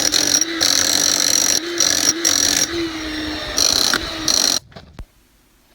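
Power tool cutting a notch into a gunite pool wall, its motor note sagging and recovering several times as it bites into the concrete; it stops a little over four and a half seconds in.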